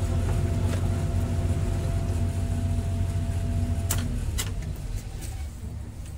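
Sumitomo excavator's diesel engine idling with a steady hum, then shut off about four seconds in: a couple of sharp clicks and the engine runs down and fades.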